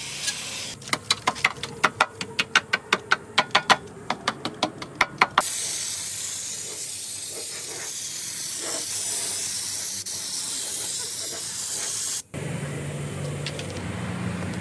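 A rapid series of sharp taps, about four a second, then a compressed-air spray gun hissing steadily for about seven seconds as it sprays coating onto a car's rocker panel. The hiss cuts off abruptly.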